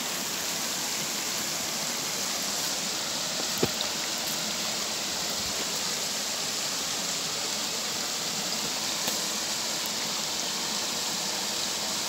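Shallow rocky stream running and splashing over rock slabs in a steady rush of water, with one brief knock about three and a half seconds in.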